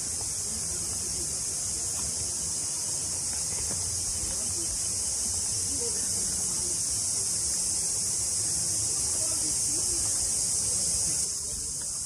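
Steady, high-pitched chorus of insects shrilling without a break in the forest, easing slightly near the end.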